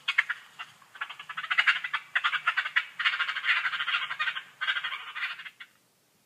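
Opossum giving rapid trains of clicks in several bursts of about a second each, with short pauses between them.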